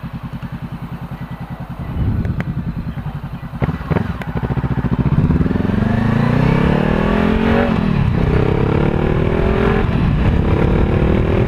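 Honda CBR500R's parallel-twin engine pulsing at low revs, then accelerating hard with the pitch climbing. It drops twice for upshifts and climbs again each time.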